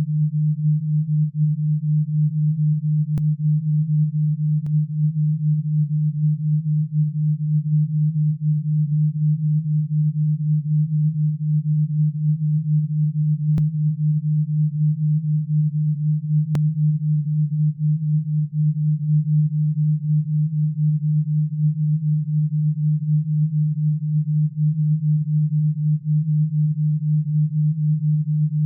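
Synthesized alpha-wave beat tone for tinnitus relief: a steady low pure tone that pulses quickly and evenly in loudness, with no other sound.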